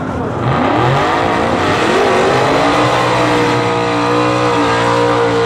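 Drag race car's engine revving hard: the pitch climbs over about the first two seconds, then holds at high revs, loud and steady.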